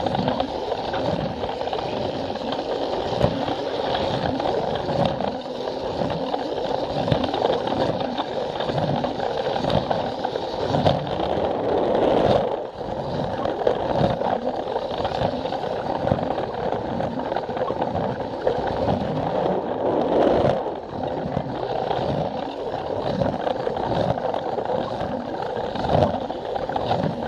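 Battery-powered Plarail toy train running along plastic track: a steady whirr of its small motor and gears, with regular clicks as the wheels cross the track joints.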